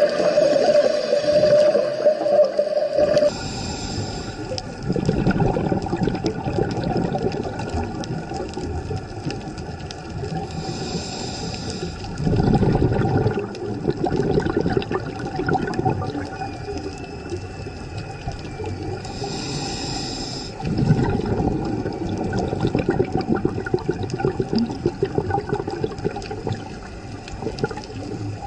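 Underwater sound of a scuba dive: rushing swells of a diver's exhaled bubbles every several seconds, over a steady hum.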